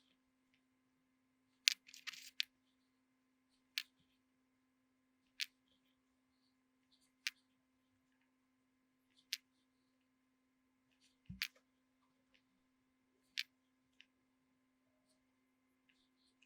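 Sharp single clicks about every two seconds, with a short rustle about two seconds in, over a faint steady low hum.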